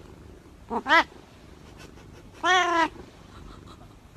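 Domestic cat meowing twice: a short meow about a second in, then a longer, drawn-out meow about two and a half seconds in.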